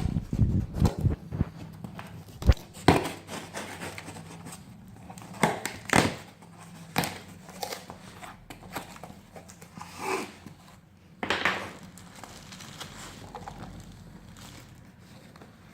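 Packaging being handled and opened by hand: irregular knocks and thumps of a box with crinkling of wrapping. The knocks come thickest in the first second or two, with one sharp knock a moment later, then scattered rustles that thin out near the end.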